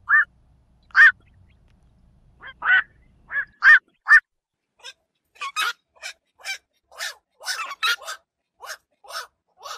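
Black-crowned night herons calling: short single calls, a few loud ones spaced out over the first four seconds, then a faster run of many quieter calls from about five seconds in.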